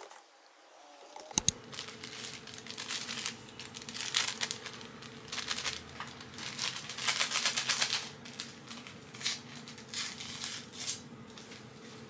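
A small paper sachet of traditional Chinese medicine being torn open and crinkled in the hands, in repeated bursts. Two sharp clicks come about a second and a half in, and a faint steady hum runs underneath.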